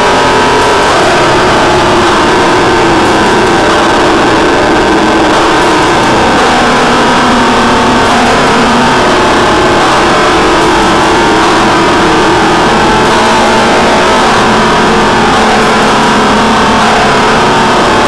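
Harsh noise/drone music: a loud, dense wall of distorted noise at unchanging loudness, with wavering droning tones in the middle range.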